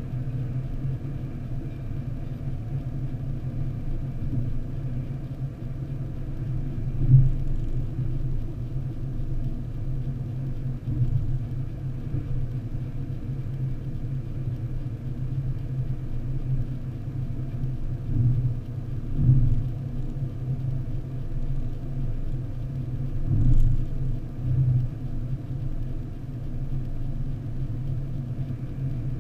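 Steady low road and engine rumble heard inside a car's cabin while driving on a motorway, with a few brief louder thumps.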